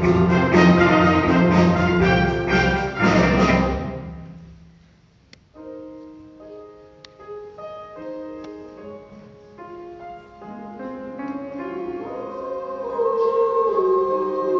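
Loud, full accompanied music ends and dies away about four seconds in; after a short hush, a piano plays a slow introduction of single held notes, and singing voices come in over it near the end.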